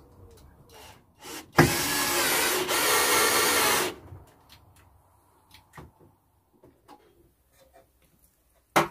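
Bench drill press motor running for about two seconds, starting about one and a half seconds in, while it drills a hole in a metal bar. A few light clicks follow, then a sharp knock near the end.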